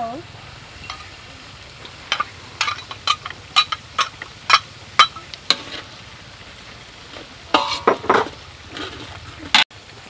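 Metal spatula scraping and tapping against a steel wok while chili paste is stirred into hot oil, over a low frying sizzle. A run of sharp scrapes comes from about two to five seconds in, and another cluster near eight seconds.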